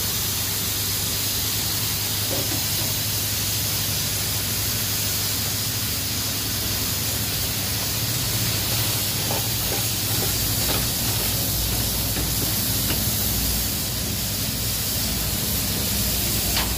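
Aluminium pressure cooker on a gas burner hissing steadily as steam escapes from its weight valve, with a steady low burner hum underneath.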